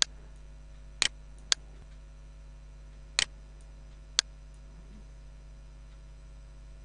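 Computer mouse clicking: about five short, sharp clicks at uneven intervals, a couple of them doubled like a press and release, over a faint steady hum.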